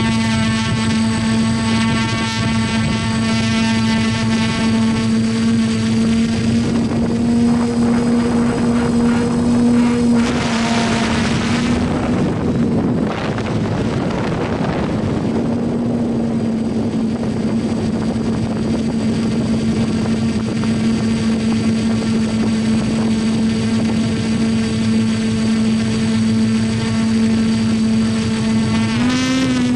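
Motors and propellers of a small camera drone in flight, giving a steady hum. About a third of the way in, the hum breaks up into a rushing noise for a few seconds, then settles back. Near the end its pitch briefly rises and wavers.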